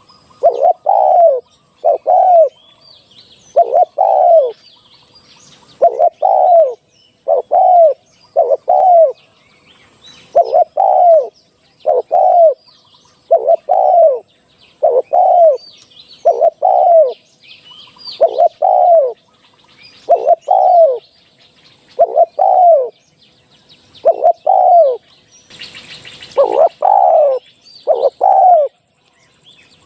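Decoy spotted dove cooing: short coos, mostly in pairs, repeated every second or two, with faint chirps of small birds behind and a brief rush of noise about 26 seconds in.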